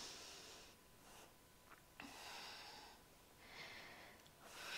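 Faint breathing, three soft breaths of air through the nose or mouth, a couple of seconds apart, as in slow yoga breathing.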